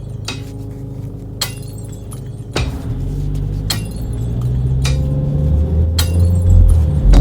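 Music: a slow beat with a sharp, bright clinking hit just over once a second over held bass notes, getting louder towards the end.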